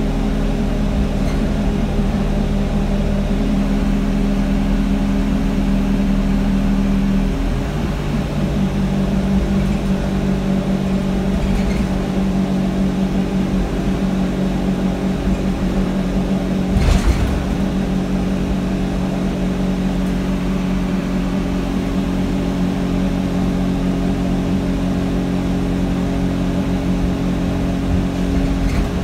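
Alexander Dennis Enviro200 bus engine and cooling fan heard from inside the rear saloon, running with a steady drone of several low tones. The tones shift about seven seconds in. A brief thump about seventeen seconds in is the loudest moment.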